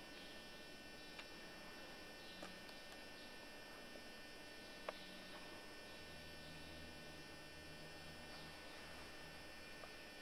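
Near silence: a faint steady hum with several thin whining tones, broken by a few faint clicks, the clearest about five seconds in.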